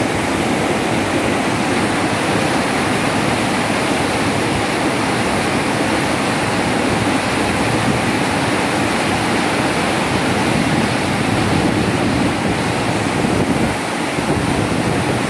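Tidal river water rushing hard through a sluice-gate opening whose gate leaf failed to close, churning and foaming below the gate: a loud, steady rush of water.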